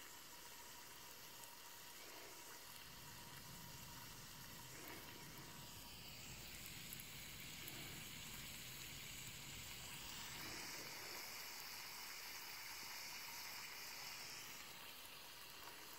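Faint steady fizzing hiss of hydrogen bubbles from zinc reacting in hydrochloric acid. It grows a little brighter for a few seconds past the middle, then eases near the end.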